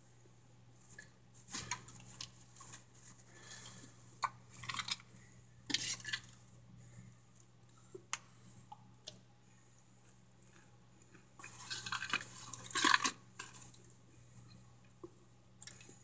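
Brittle microwaved cornstarch chunks crackling and crunching in an aluminium foil pan, with scattered sharp clicks and irregular bursts of crunching, loudest about twelve seconds in.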